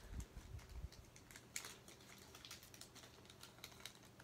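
Faint, scattered light clicks and crinkles as fingers open and handle a small clear plastic bag of tiny metal gears, with a few soft low bumps in the first second.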